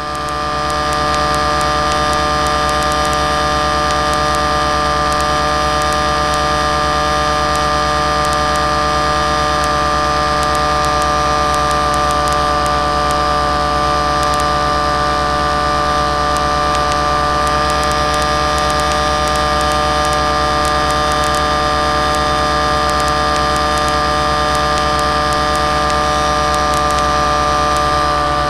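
Steady drone of an aircraft's motor with rushing air, picked up by a small camera mounted on the aircraft in flight; the pitch holds level throughout, as in steady cruise or climb.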